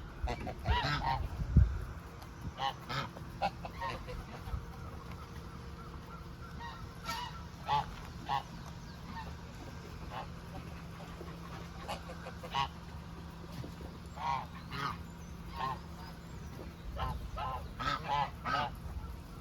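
Geese honking, a flock giving short calls in scattered bursts, several calls close together at times and then pauses of a few seconds.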